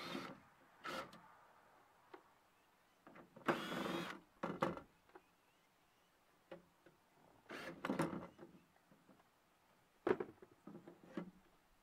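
DeWalt cordless drill/driver spinning in several short bursts as it backs out the quarter-inch screws holding a door speaker, with clicks and knocks of handling between the bursts.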